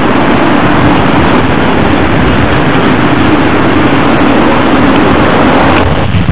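Heavy diesel bus engine running loud and steady close to the microphone, dropping away near the end.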